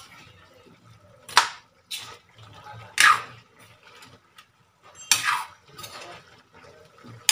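Metal ladle scraping and clinking against a metal wok while stirring a saucy stew of meat and potatoes: three loud scrapes about one and a half to two seconds apart, with softer clinks and wet stirring between.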